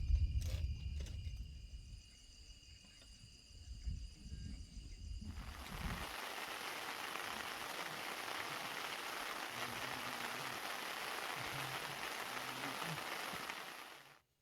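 Steady rain falling, an even hiss that starts abruptly about five seconds in and cuts off just before the end. Before it, a low rumble with faint steady high tones.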